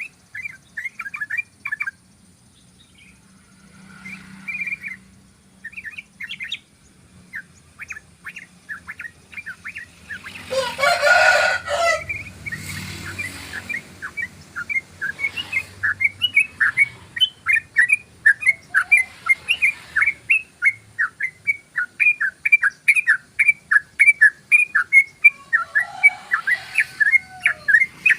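Yellow-vented bulbul (trucukan) singing: short bubbling phrases that settle, about halfway through, into a long fast run of repeated chirps at about three to four a second. A louder, drawn-out call cuts across about ten seconds in.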